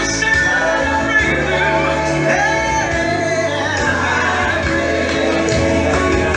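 Gospel worship music with singing: voices sustaining melodic lines over a steady full band.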